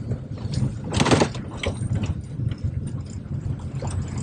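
Cabin noise of a Daihatsu Cuore driving over a rough dirt track: a steady low road and engine rumble with short knocks and rattles from the body and dashboard as it bumps along, and one loud jolt about a second in. The rattle is one the passenger puts down to something loose in the dashboard or its glovebox drawer.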